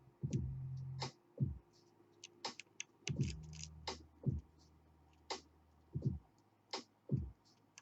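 Metal lock pick clicking and tapping against the pins inside a KABA Gemini dimple lock, in irregular light clicks as the pins are probed one by one, with a dull low thud about every second.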